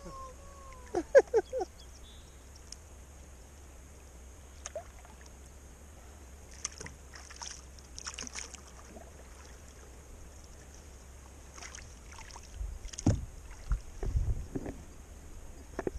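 Kayak paddling on calm water: the paddle dipping and dripping beside the hull. A few short, loud, sharp sounds come about a second in, and low thumps against the boat or microphone near the end.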